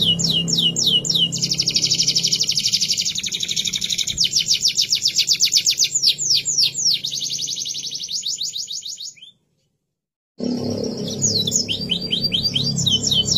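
Domestic canary singing: quick series of repeated high notes and trills, with a fast dense rattle about a second in. The song fades out after about nine seconds, then a second of dead silence, then the song starts again.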